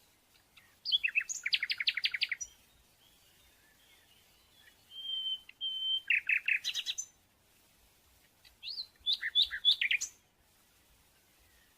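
A small songbird singing: three phrases a few seconds apart, each a quick run of high repeated chirps, with a short steady whistled note just before the second.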